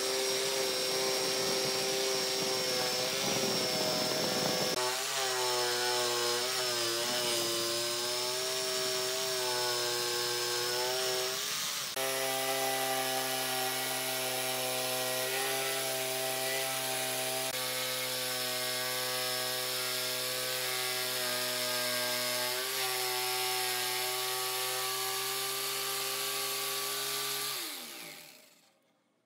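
Electric jigsaw cutting a curve through a thick pine panel: the motor runs with a steady whine, its pitch dipping now and then as the blade takes load. Near the end the motor winds down and stops.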